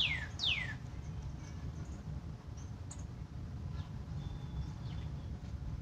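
A songbird singing a series of clear down-slurred whistles, about two and a half notes a second, the phrase ending about a second in; after that only a steady low background rumble.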